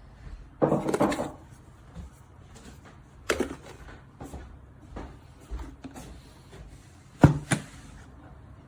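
Handling noises on hard objects: a scraping rustle about half a second in, a single knock around three seconds in, and two quick knocks near the end.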